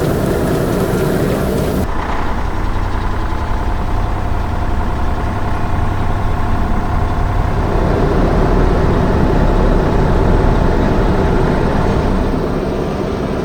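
Heavy construction vehicle engine running steadily. Its sound changes about two seconds in and swells a little louder past the middle.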